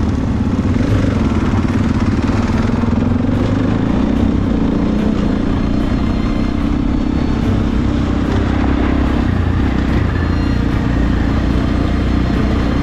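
Dirt bike engine running steadily at a constant speed, heard from on the bike itself while riding a gravel track.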